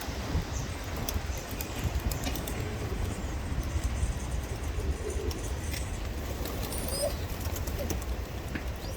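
A flock of feral pigeons cooing softly now and then, with many small scattered clicks, over a steady low rumble.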